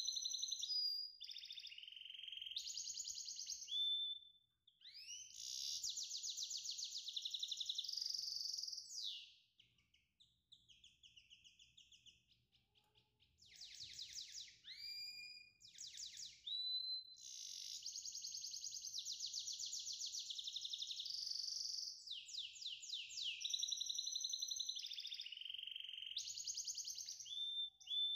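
A songbird singing: long runs of rapid, high trills broken by short whistled glides, with a pause of a few seconds about ten seconds in.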